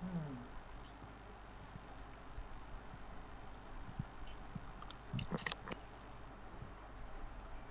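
Faint computer mouse clicks, a few scattered single clicks and a short louder cluster about five seconds in, as the virtual tour is steered.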